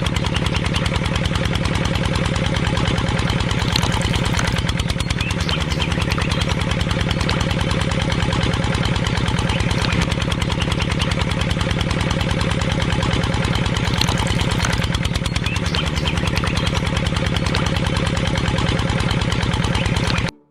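Small engine of a homemade mini tractor running steadily with a fast, even chugging beat, cutting off suddenly at the end.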